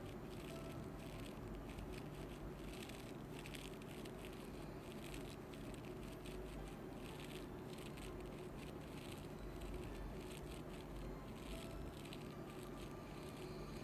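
Ear-cleaning tools working inside the ear canal, heard close up: soft, irregular scratching and rustling over a low steady hum.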